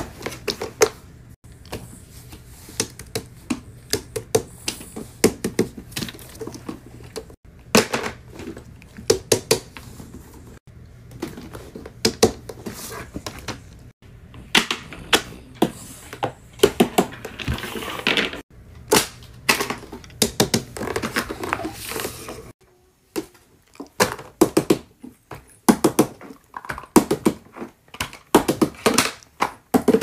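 Silicone pop-it fidget toys and other fidget toys handled and put down on a table: irregular runs of sharp clicks, taps and soft thuds.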